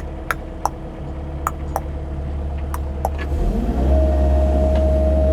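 CAT 308 mini excavator's diesel engine running steadily, with a series of sharp clicks, then about three seconds in the engine picks up under load with a rising pitch, louder, and a steady high whine comes in.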